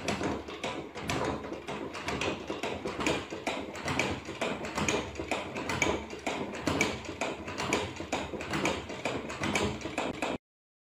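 Hand-cranked cardboard horse-race toy running, its wooden sticks and cardboard parts clattering in fast, uneven taps as the horses bob up and down. The clatter stops abruptly just before the end.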